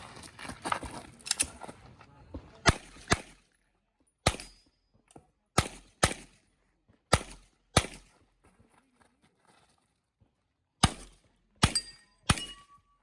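Handgun shots fired during a practical-shooting (IPSC) stage. There is a quick string of shots in the first second and a half, then single shots and pairs spaced about a second apart, and a pause of about three seconds before a final few shots near the end. Each shot is sharp and echoes briefly.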